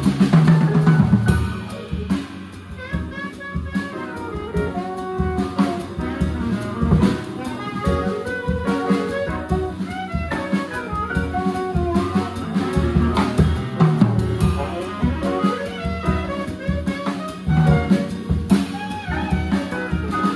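Small jazz band playing live, heard from behind the drum kit: drums and cymbals up front, with electric bass and a busy melodic line above. The band is louder for the first second or so, then drops back.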